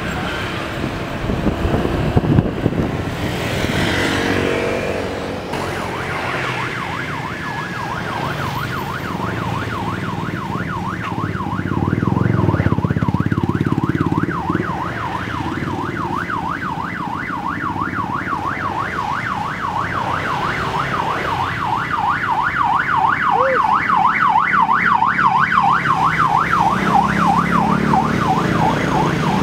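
A vehicle siren yelping, its pitch sweeping rapidly up and down about four times a second; it starts about nine seconds in and grows louder toward the end. Beneath it, cars and motorcycles drive past.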